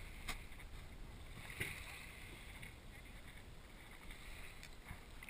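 Faint lapping of shallow sea water, heard muffled through a GoPro's waterproof housing, with two small soft splashes or knocks, one just after the start and one about a second and a half in.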